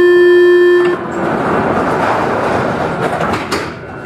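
Paris Métro MP05 train's horn holding one steady note, which cuts off about a second in. A rushing noise follows and fades, with a sharp click near the end.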